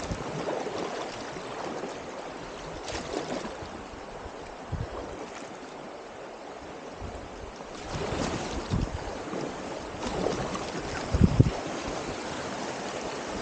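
Clear mountain creek rushing over rocks around a packraft: a steady splashing rush of water, growing a little louder about two-thirds of the way through, with a couple of low thumps near the end.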